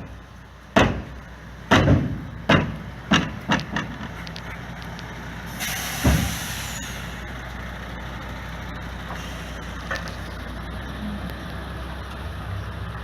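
Lorry delivering a load of type 1 scalpings: a run of loud clangs and knocks that thin out over the first four seconds, then a burst of air hiss with a thump about six seconds in, then its engine running steadily.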